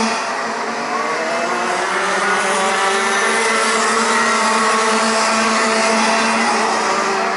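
Several Rotax Max 125 cc two-stroke kart engines racing at once, their notes at different pitches rising and falling as the karts work through the corners.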